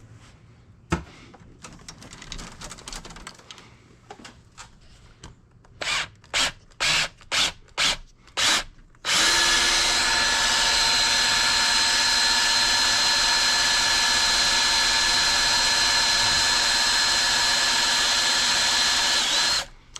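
Small electric power tool motor, drill-like. It is blipped in about six short pulses, then runs steadily with a high whine for about ten seconds before stopping.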